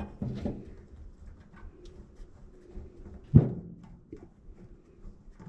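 Hand-tool work on an engine's fuel rail bolts: small clicks and light metal handling, with one sharp knock about three and a half seconds in.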